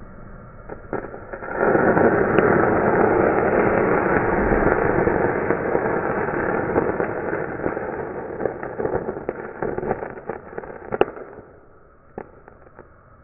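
Copper thermite going off, heard in slow motion at one-eighth speed. A steady torch hiss gives way about a second and a half in to a sudden loud rushing burn full of crackles and pops. The burn runs for about nine seconds, with a sharp crack near the end, then dies away.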